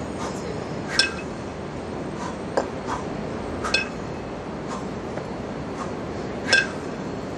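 Two 20 kg kettlebells clinking against each other with a short metallic ring as they are racked at the chest and pushed overhead. Several sharp clinks come a second or more apart, the loudest about a second in and near the end, over a steady background hiss.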